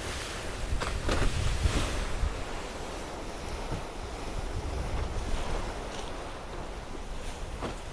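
Wind and water rushing past a sailing trimaran under way at speed, with wind buffeting the microphone and a low rumble. A few brief louder surges come in the first two seconds.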